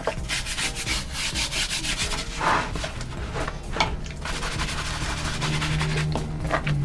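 Soft-bristled brush scrubbing a wet, soapy carpet prayer mat in quick, light strokes, the gentle brushing meant to keep the pile from pilling.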